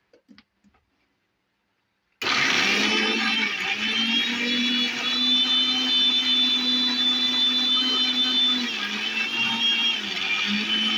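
Electric mixer grinder switched on about two seconds in and running steadily with a motor whine, grinding small onions and green chillies without water into a coarse paste. Its pitch dips briefly near the end and then picks up again.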